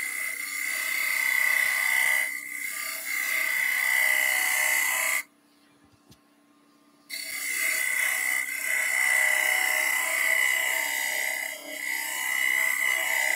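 Wood turning on a lathe: a hand-held turning tool cuts the spinning wood with a steady hiss of shavings and a high steady whine, over the lathe's low hum. The cutting drops to near silence for about two seconds midway, then resumes.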